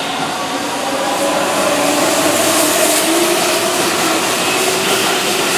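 Seven-car Keihan electric commuter train running past along the platform: steady wheel-on-rail rumble with a traction-motor whine whose tones slowly glide in pitch.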